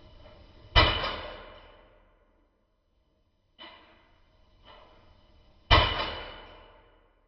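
A gas blowback airsoft pistol, a KJ Works Glock 23 replica, fires two single shots about five seconds apart, each a sharp crack that rings out. Quieter handling noises come before each shot.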